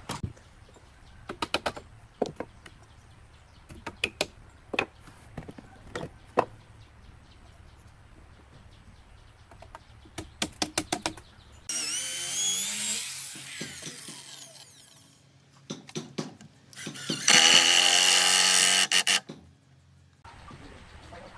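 Scattered wooden knocks and clicks as a beam is fitted and clamped to a log post. A power drill then runs into the beam twice: first a burst from about twelve seconds in that winds down over a few seconds, then a louder, steady run of about two seconds near the end.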